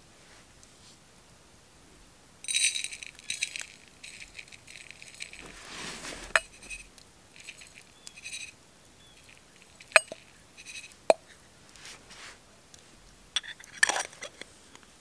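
A small stainless steel tin and a stainless steel cup clink together as dry grounds are tipped and tapped from the tin into the cup. Rattling metallic clinks come in clusters, with two single sharp clinks about ten and eleven seconds in.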